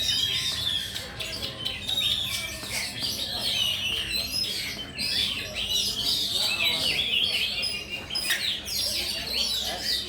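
Caged oriental magpie-robins (kacer) singing together: a dense, unbroken stream of quick chirps and whistled phrases.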